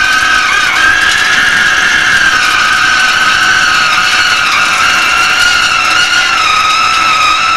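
Hegenscheid 105 underfloor wheelset lathe turning a railway wheel: the cutting tool gives a loud, continuous high-pitched squeal against the wheel, its pitch wavering and dipping slightly midway before rising again near the end.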